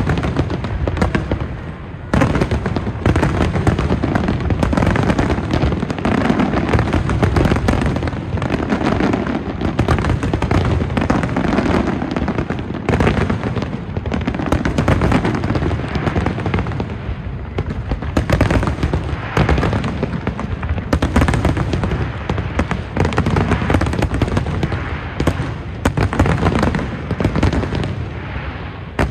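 Large aerial fireworks display: a rapid, unbroken barrage of shell bursts, many bangs a second, briefly thinning about two seconds in.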